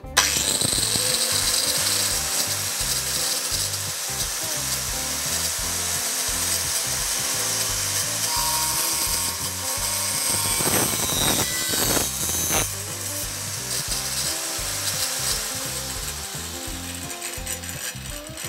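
Angle grinder in a chop-saw stand starting suddenly and running at full speed while its toothed blade cuts through a copper-clad board: a steady loud hiss-and-whine of blade on board, with a few harsher scrapes about eleven to twelve seconds in, easing off near the end.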